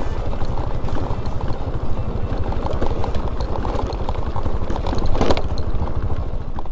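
An engine running steadily, with a fast low pulsing under a rushing noise, louder for a moment about five seconds in.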